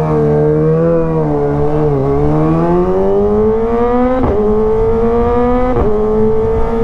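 Kawasaki ZX-25R's 250 cc inline-four engine accelerating under throttle, its pitch climbing steadily, broken twice by quick upshifts about four and six seconds in.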